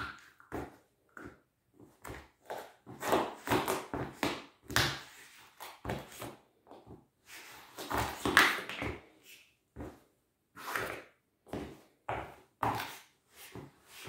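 Nike Air Max sneakers stepping and stamping on a tile floor, trampling a small rubber ball: a string of irregular short thuds and knocks, with a few longer rubbing, squeaking stretches as the soles press and scrape on the ball.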